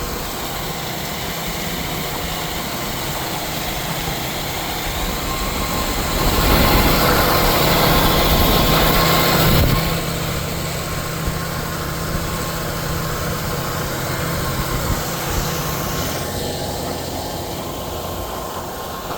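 Tractor engine running steadily under load while pulling a roller crimper through a rye cover crop, with rattle from the tractor and implement. It grows louder and noisier for about three seconds in the middle, then settles back to a steady drone.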